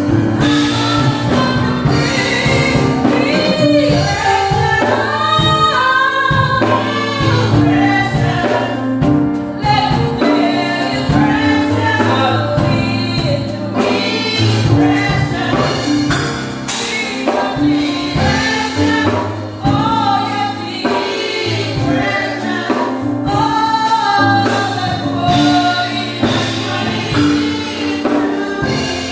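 Gospel praise song: a woman's lead voice sung into a microphone, with choir voices over steady, sustained instrumental backing.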